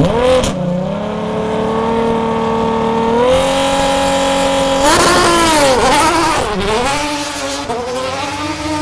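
Ferrari V12 GT race car engine held at high revs on the start line, stepping up just before launching about five seconds in. It then accelerates away, the pitch climbing and dropping with each of several upshifts.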